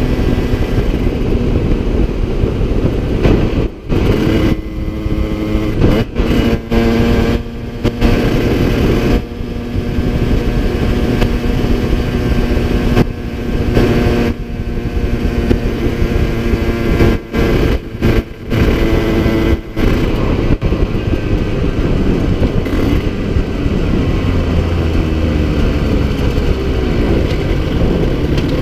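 Two-stroke 70cc-kitted Yamaha TZR 50 engine running under way, heard from the rider's seat, its pitch rising and falling with the throttle. Several brief sudden drops in sound break it up in the first twenty seconds. The top end is worn out and the engine down on power.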